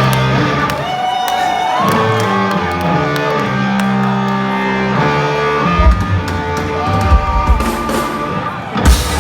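Hard rock band playing live in a club: sustained electric guitar and bass, with heavy kick-drum hits coming in about six seconds in and the full band crashing in near the end.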